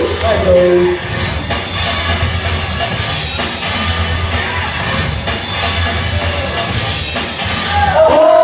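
DJ's break music for a b-boy battle playing over the hall speakers, with a heavy bass and a steady drum beat. A drawn-out sliding vocal cry comes in near the end.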